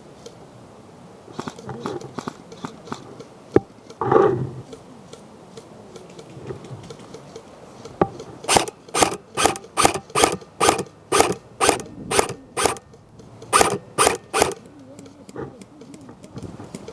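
Footsteps crunching on dry woodland ground, about two steps a second, for roughly six seconds in the second half. Earlier there are scattered small clicks and gear rustle, one sharp click a little over three seconds in, and a brief voice.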